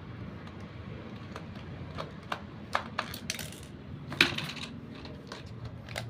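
Small screwdriver clicking and scraping on the screw and plastic battery cover of a remote-control toy tank as the cover is opened: scattered light clicks, loudest about four seconds in, over a steady low background rumble.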